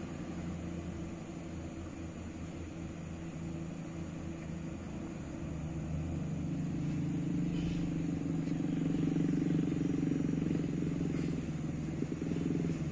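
A loaded diesel truck and a motorcycle coming closer on a dirt road, their engines a steady drone that grows louder about halfway through.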